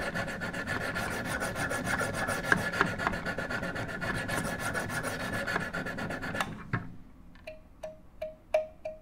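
Handheld sharpening stones on a Wicked Edge guided knife sharpener scrubbing rapidly back and forth along a paring knife's edge, at an angle widened by one degree to reach the apex and raise a burr. The scrubbing stops about six and a half seconds in, after which evenly spaced ticks follow, about three a second.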